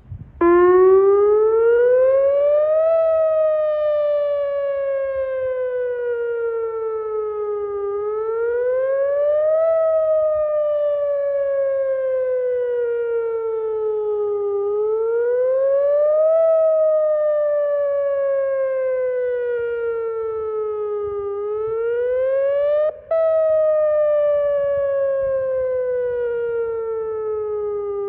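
Warning siren wailing slowly up and down in a repeating cycle, each rise lasting about two and a half seconds and each fall about four. It starts about half a second in and cuts out for a split second near the end before carrying on.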